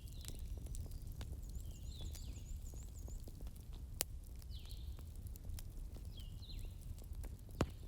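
Wood fire crackling, with a low steady rumble of burning and scattered small ticks, and two sharp pops about four seconds in and near the end. Faint, high, repeated chirping sounds run through it.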